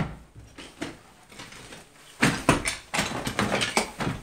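Footsteps crunching and clattering over rubble and broken plaster debris. The footsteps start with a knock, stay sparse, then turn into a busy run of irregular crunches about two seconds in.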